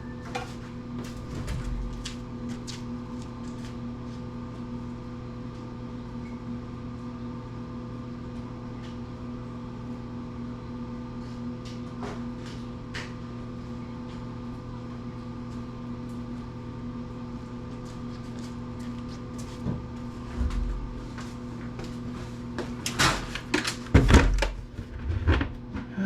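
Steady electrical hum with a few faint scattered clicks, then near the end a run of loud knocks and clatter of metal tools being handled.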